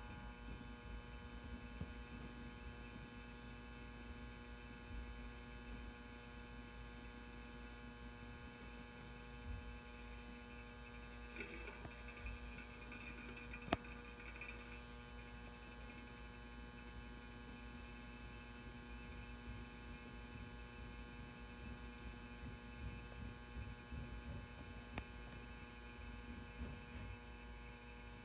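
Magnetic metal halide ballast (M59/E) humming steadily as it powers a 400 W probe-start metal halide lamp through its warm-up, with one sharp click about halfway through.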